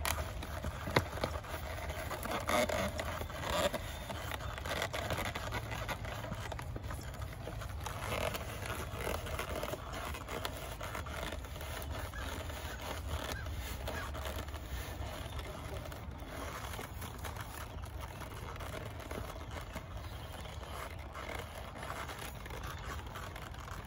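Thick, stiff saddle leather scraping and rubbing as a stirrup leather is worked out from under a western saddle's seat, with a few sharper knocks in the first four seconds.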